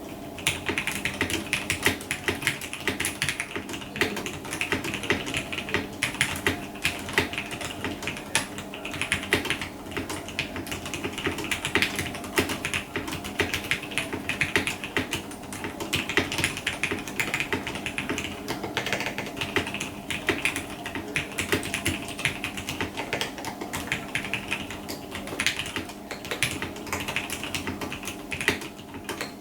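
Continuous typing on a custom mechanical keyboard with vintage Cherry MX Black linear switches in a full aluminium plate under dye-sub keycaps: a dense run of key clacks with short pauses now and then.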